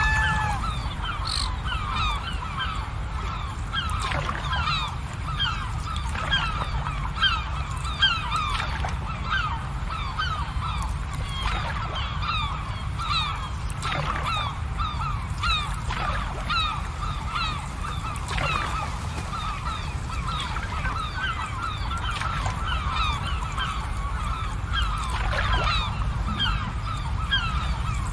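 A large flock of birds calling continuously, many short overlapping honk-like calls, over a steady low rumble.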